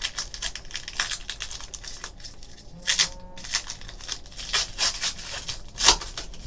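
A trading card pack's wrapper crinkling and crackling as it is torn open by hand, in a string of short crackles, the loudest near the end.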